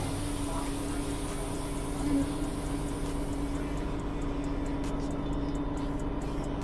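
City bus running, heard from inside the cabin: a steady drone with a constant low hum.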